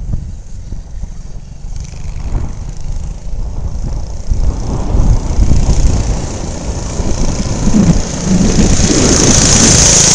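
Small single-cylinder 6 hp Briggs & Stratton engine on a homemade ATV, getting louder from about halfway through as it drives closer, with wind rumbling on the microphone. Near the end the sound steps up suddenly to a steady, louder rush.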